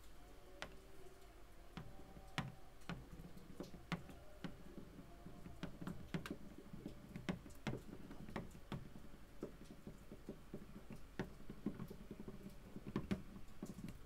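Irregular light clicks and taps of a stylus writing on a tablet screen, over a faint low hum.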